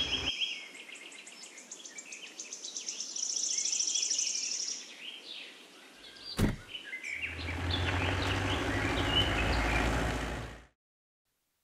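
Outdoor ambience of birds chirping, with a fast high trill around three to five seconds in. A single sharp click comes a little past six seconds. Then a car engine runs with a low steady hum under more birdsong before the sound cuts off suddenly near the end.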